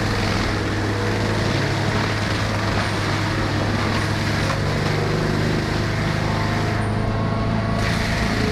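Engine of a heavy tree-removal machine running steadily: a deep, even hum with a noisy mechanical rumble over it.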